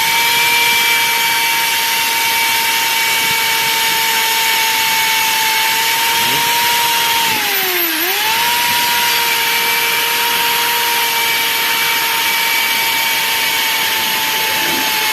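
Electric drill spinning an engine valve against its seat with lapping paste, grinding the valve in a motorcycle cylinder head. A steady motor whine spins up at the start, sags briefly and recovers about eight seconds in, and winds down at the end.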